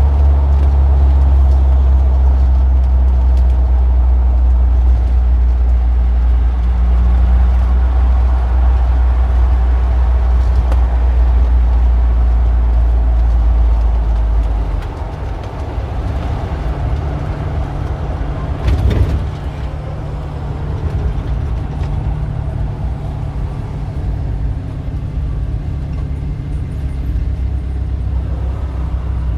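Street traffic. A nearby vehicle engine's deep low rumble dominates the first half, then drops away, leaving lighter passing-car noise. There is a short knock about two-thirds of the way through.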